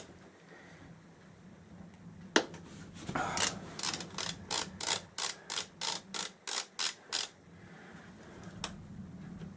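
Socket ratchet clicking in a quick run of strokes, about three a second, after a single sharp knock: the 17 mm drain plug on the shaft drive's final-drive housing being undone.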